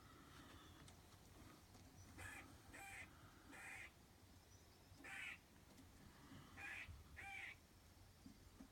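Faint animal barking: six short, harsh barks, three close together about two seconds in, one near the middle and two more later on.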